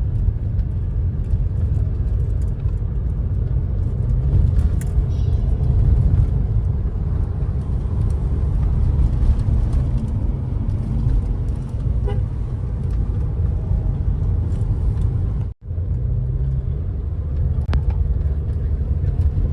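Car driving on the road: a steady low rumble of engine and tyre noise, cutting out for an instant about three-quarters of the way through.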